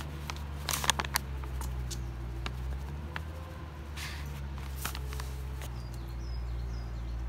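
Paper flour bag crinkling and flour pouring into a metal mess tin: a few sharp rustles and taps, with a longer rustle about four seconds in, over a steady low hum.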